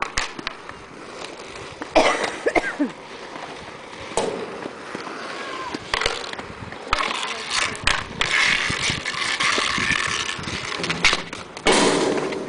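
Inline skate wheels rolling and scraping on an asphalt rink, with a few sharp clacks at the start and louder, rougher stretches of rolling later on.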